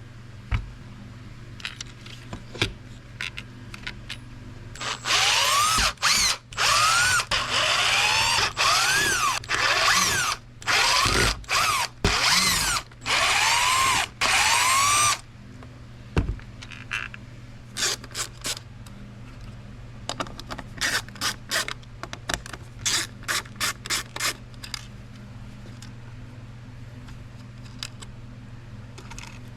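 Cordless drill-driver taking apart a dash cluster housing in about eight short runs, each spinning up and winding down, followed by a string of quick clicks.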